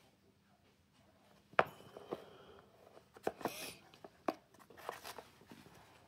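Handling noise from a cardboard mailer box being handled and opened: a sharp knock about a second and a half in, then scattered clicks and knocks with a short rustle in the middle.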